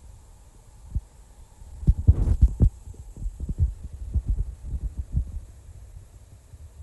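Low, irregular thumping and rumble on a phone's microphone as it is handled and swung around: one thump about a second in, then a dense run of thumps from about two to five seconds in.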